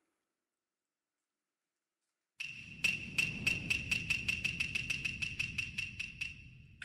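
Silence for about two seconds, then a fast run of light strikes, about six a second, over a steady ringing tone, fading near the end.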